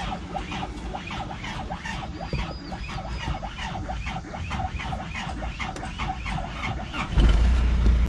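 Diesel van's starter cranking the engine in a fast, even rhythm with a whining squeal. About seven seconds in the engine fires and settles into running. It is being started on a borrowed battery after its own battery would not start it.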